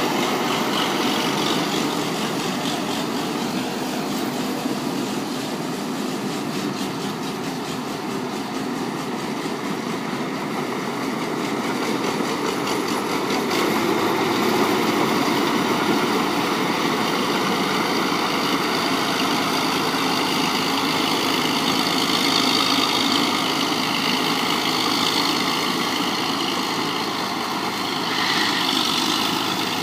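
Rice combine harvester running steadily, its engine and machinery making a continuous mechanical drone that swells slightly a couple of times.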